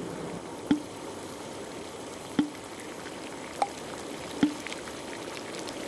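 Yellow-sand river clams boiling in a pot of water, with a steady bubbling and four short, sharp pops about a second apart as the shells burst open. This is the 'bo bo' sound that gives bo bo clams their name.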